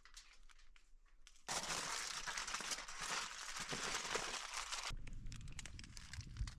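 Brook trout frying in olive oil in a pan, sizzling and crackling; the sizzle starts suddenly about a second and a half in, goes on for about three and a half seconds and then drops away abruptly.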